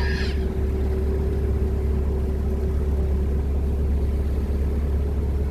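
Klotok motorboat's engine running steadily: a deep, even drone with a steady hum above it. A brief high chirp sounds right at the start.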